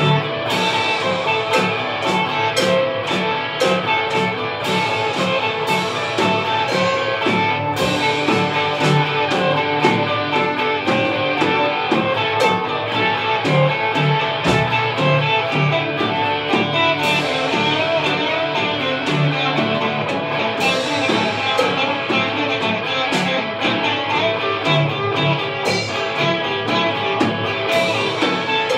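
Live rock played by a band: two electric guitars, a Stratocaster-style and a Les Paul-style, over a Gretsch drum kit with frequent cymbal crashes and drum hits.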